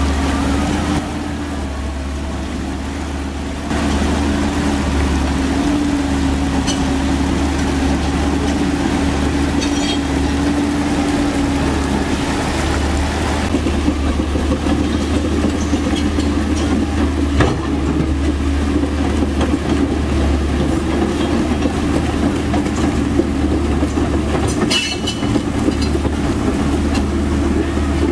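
Komatsu PC130F-7 hydraulic excavator's diesel engine running at a steady pitch as the machine moves through shallow river water, with a couple of sharp knocks partway through and near the end.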